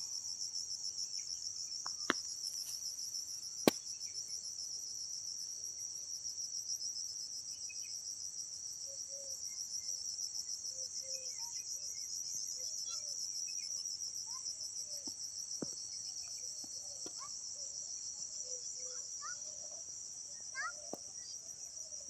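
A steady, high-pitched chorus of trilling insects, with faint scattered chirps beneath it. Two sharp clicks come about two and four seconds in.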